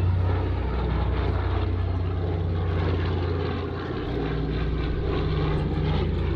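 Consolidated PBY-5A Catalina flying boat's twin Pratt & Whitney R-1830 Twin Wasp radial engines and propellers running steadily, a continuous low drone that swells and eases slightly.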